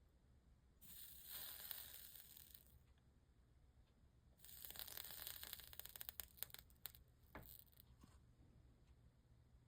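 Soldering iron melting solder onto lead came joints, the flux sizzling and crackling in two faint bursts of about two seconds each.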